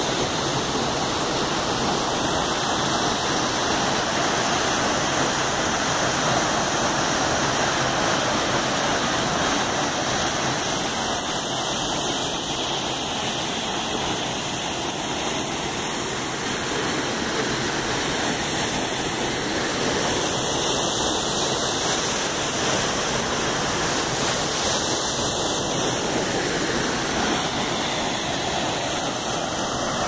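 Steady rush of water from a waterfall and the shallow rapids below it, an even hiss with no change in level.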